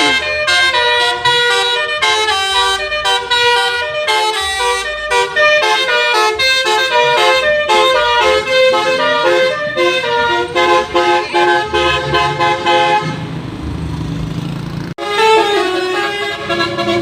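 Basuri 'telolet' musical horn playing a fast tune of rapidly changing notes. About 13 seconds in the tune breaks off into a rumbling hiss, then after a sudden cut the horn tune starts again.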